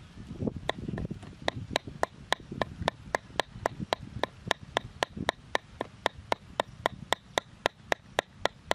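Knife chopping raw meat on a wooden cutting board, mincing it with steady, even strokes about three to four a second, starting about half a second in.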